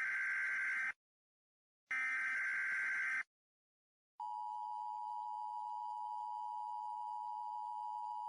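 Emergency Alert System tones: two short bursts of digital SAME header data tones, then, about four seconds in, the steady two-tone EAS attention signal, which holds to the end. Together they are the lead-in that announces a broadcast emergency alert.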